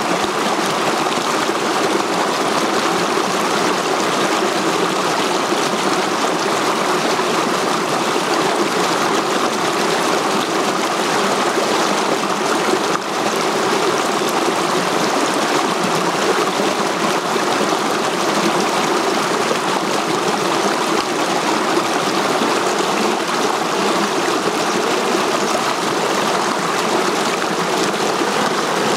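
Shallow rocky stream flowing and splashing over boulders in small cascades: a steady, unbroken water noise.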